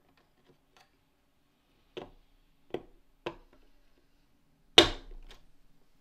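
Hard plastic parts clicking and knocking as a 3D-printed cog is pushed down into place over its skateboard bearing. There are three light clicks, then a louder knock about five seconds in.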